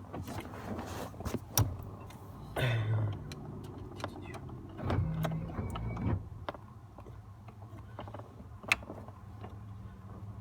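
Hands working under a car's steering column: scattered sharp clicks and light knocks of parts and tools being handled, with two short low muffled sounds about three and five seconds in.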